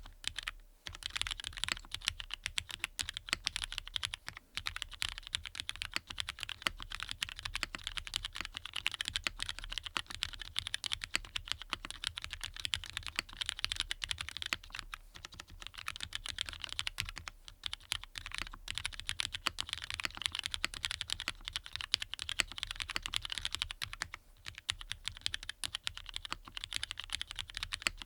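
Continuous fast typing on a Matrix 8XV 3.0 mechanical keyboard with lubed Cherry MX Black linear switches in an aluminium plate. The keystrokes come in a dense, steady run with a few brief pauses.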